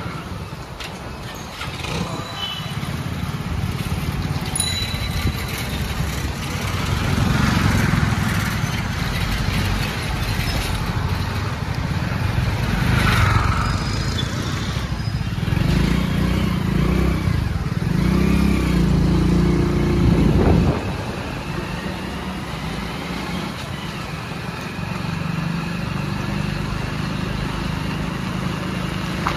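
Street traffic: motor vehicles such as motorcycles and cars running and passing. A low engine drone builds through the middle and cuts off abruptly about two-thirds of the way through.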